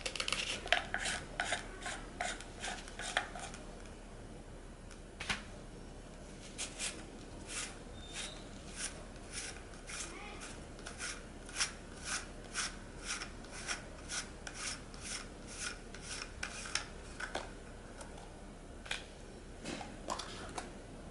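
Plastic parts of an Aqualung Legend Glacia scuba regulator second stage clicking and rubbing as it is taken apart by hand: a quick run of clicks at the start, then a steady series of light clicks, about two or three a second, from about six seconds in.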